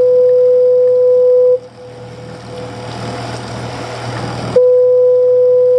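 Lighthouse foghorn sounding loud, long, steady blasts on one low note: one blast ends about a second and a half in, and the next starts about three seconds later and carries on.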